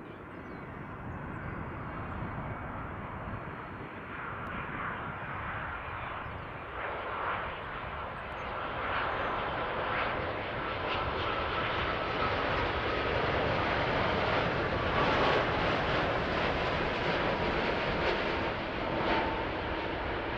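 Jet airliner's engines growing steadily louder as the aircraft approaches, with a faint whine that slowly falls in pitch.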